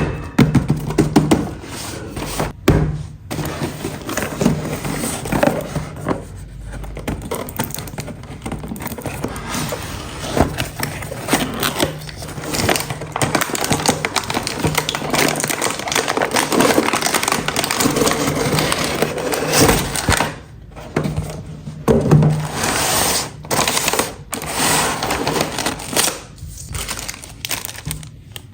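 Hands handling a plastic toy and its packaging: a dense run of clicks, knocks and scrapes, with brief pauses.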